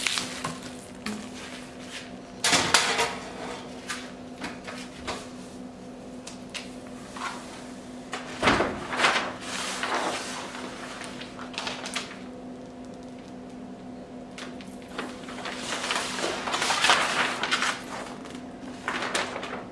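Wrapping paper rustling and crinkling in irregular bursts as it is unrolled and pressed flat against a pegboard, with a few knocks and a dull thump about eight and a half seconds in.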